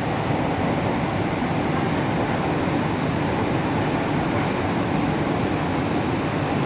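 Steady rumble and rush of a metro train running between stations, heard from inside the passenger car.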